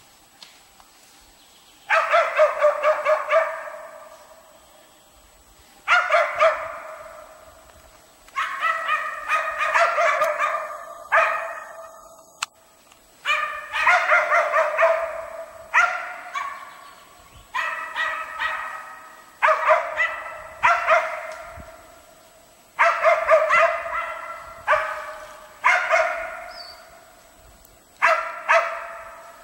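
West Siberian laikas bay-barking at moose they have found. The barking comes in bouts of rapid barks, about one to two seconds long, every two to three seconds.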